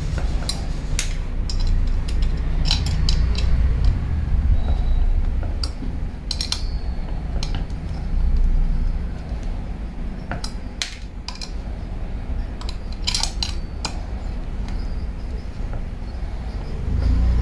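Scattered metal clinks and ticks as a drill stand's column rod is seated in its base and the two Allen screws holding it are worked with an L-shaped Allen key, over dull handling bumps.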